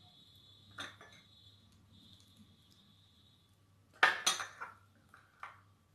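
Light clinks of a glass serving bowl and plate being handled: a single knock, then a quick clatter of several knocks about four seconds in, and one last clink near the end.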